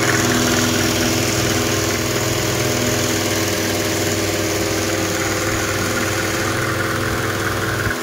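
Engine idling steadily, an even low hum that holds the same speed throughout.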